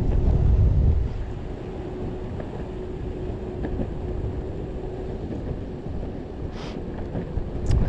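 Wind buffeting the microphone during an electric skateboard ride, over a steady low rumble of the wheels rolling on pavement, with a louder gust in the first second. A faint steady whine runs underneath.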